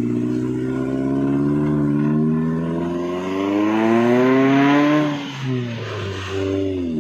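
A vehicle engine revs up under load, its pitch climbing steadily for a few seconds. About five seconds in it drops off, revs briefly again, and falls back near the end.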